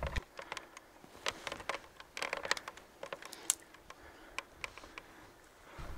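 Dry brush crackling: a scatter of sharp, irregular clicks and snaps like twigs cracking, thickest in the first half and with the loudest snap about halfway through.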